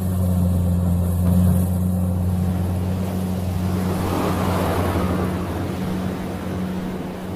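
Kubota rice combine harvester running with a steady engine drone, and a swell of rushing noise about four to five seconds in.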